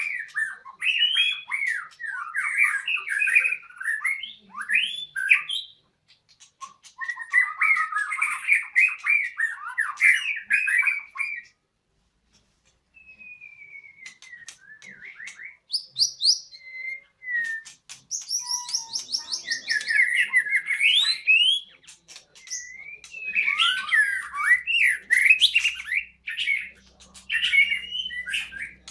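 White-rumped shama singing in bursts of rapid, varied chattering and whistled phrases, breaking off briefly about halfway through.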